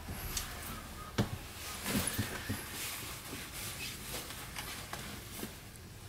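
Mitsubishi Fuso Aero Star city bus idling at a standstill, heard from inside the cabin as a low steady engine hum. A sharp knock about a second in and a few light clicks and rattles follow.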